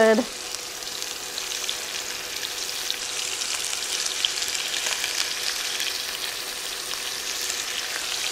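Pork chops sizzling in hot cooking oil in a skillet as more chops are laid into the pan, a steady hiss with scattered crackling pops that grows a little fuller about a third of the way in. A faint steady hum sits underneath.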